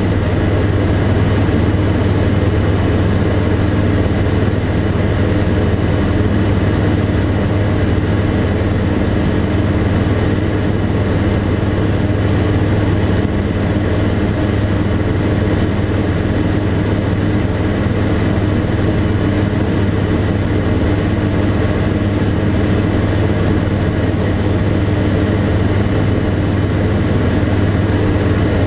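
Tecnam P92 Echo Super's Rotax 912 four-cylinder engine and propeller running steadily in cruise flight, a loud, even drone heard from inside the cockpit.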